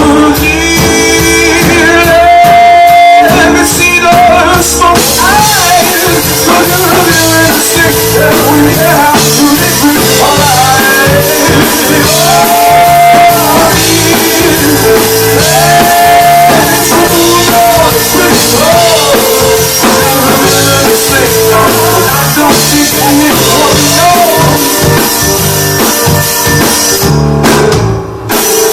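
Live rock band playing a song, with drum kit, guitar and held sung notes over the full band; the music breaks off briefly near the end.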